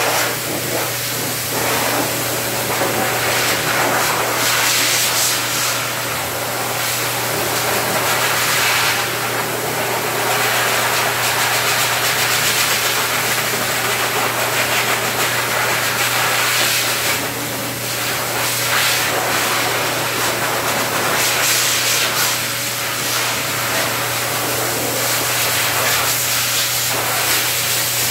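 High-velocity pet dryer blowing a steady rush of air through its hose, with a low motor hum underneath. The hiss swells and dips as the nozzle moves over the dog's coat.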